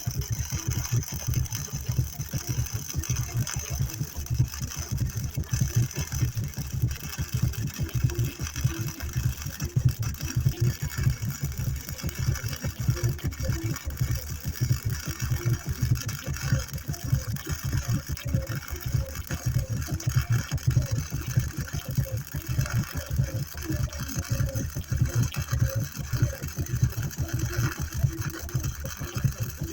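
Welding arc crackling and sizzling steadily as a bracket is welded onto a steel backhoe frame.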